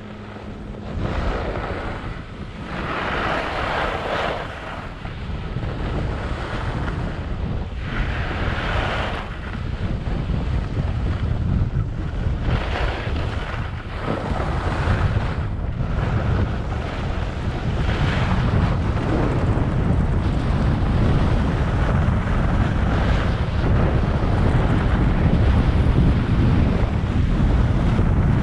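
Wind buffeting the microphone: a steady low rumble that grows louder, with surges of hiss about 3, 8, 13 and 15 seconds in.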